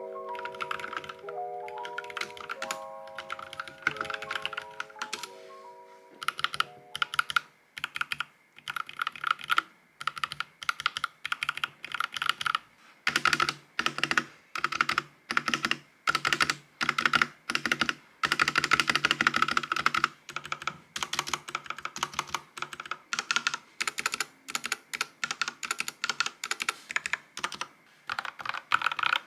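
Typing on a Vissles V84 wireless mechanical keyboard with linear switches: runs of quick key strokes with short pauses between them. Soft bell-like background music plays under the first few seconds and then fades out, leaving the typing alone.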